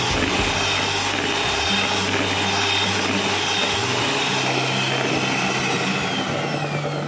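Miyako electric hand mixer running steadily at medium speed, its beaters whirring through a thin liquid mix of coconut milk, condensed milk and matcha in a plastic bowl.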